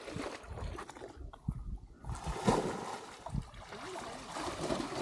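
Shallow muddy water splashing and sloshing as a man wades and plunges a bamboo plunge-basket fish trap (ottal) into it, growing louder about two seconds in.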